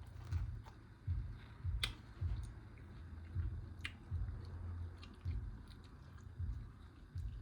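Close-miked chewing of a mouthful of burrito, with wet smacking in a steady rhythm of soft low thumps about every half second to second and a few sharp mouth clicks.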